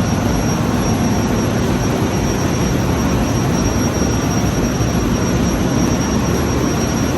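Loud, steady machinery noise from a cargo ship's engine room, with a constant high-pitched whine over it.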